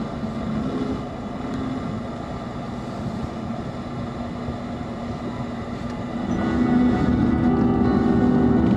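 Car engine hum and road noise heard from inside the cabin while driving, a steady rumble that grows louder about six seconds in.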